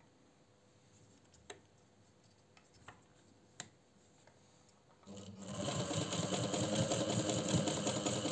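1954 Singer 216 zigzag sewing machine standing still with a few faint clicks, then starting up about five seconds in and running at speed with a fast, even rhythm of needle and mechanism.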